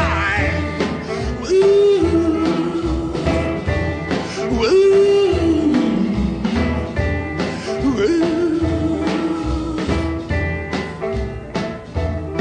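Background music: a song with a singing voice, guitar and a steady beat, in a blues or country style.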